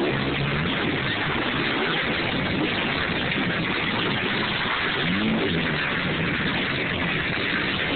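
Off-road racing engines on a dirt track buzzing and revving over a dense wash of noise; one engine climbs and drops in pitch about five seconds in.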